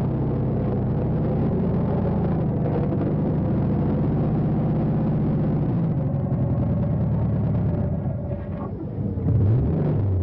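Car engine running steadily, easing off about six seconds in, with a brief rise and fall in pitch near the end.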